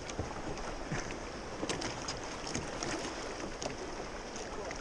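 Choppy river water slapping and lapping against a small aluminium boat's hull, with steady wind rumbling on the microphone and scattered small splashes and ticks.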